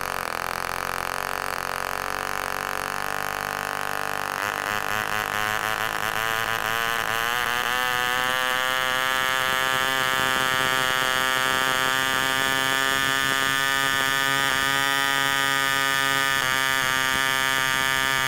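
Super Hurricane 24 vintage spark-ignition model aero engine, a small single-cylinder two-stroke, running on a test stand and turning a 10x6 wooden propeller with a steady buzzing note. About four seconds in it gets louder and the revs climb for a few seconds as the needle valve is set, then hold steady. At the very end it cuts out suddenly: the ignition lead has come off the back of the engine.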